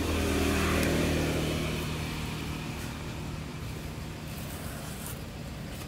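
A motor vehicle engine running, louder for the first second or two, then easing down to a steady low hum.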